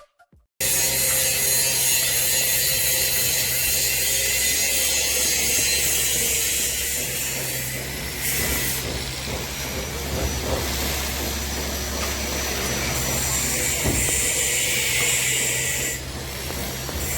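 Excavator at work: its diesel engine runs with a steady low hum under mechanical clicking and clatter. It starts abruptly just after the beginning.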